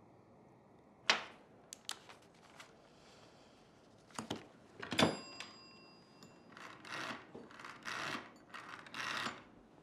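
An old-fashioned desk telephone being handled: several sharp clicks and knocks, the loudest as the handset is picked up, with a brief metallic ring, followed by a run of short rasping mechanical bursts.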